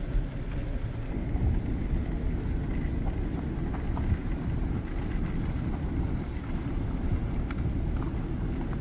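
Car driving, heard from inside the cabin: a steady low rumble of engine and road noise, with a few faint ticks.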